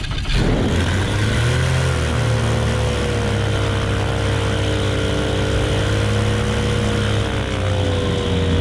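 Viking 130 aircraft engine of a Zenith 750 STOL, with its propeller, running right after a cold start in subzero weather. Its pitch climbs briefly about two seconds in, then it runs steadily.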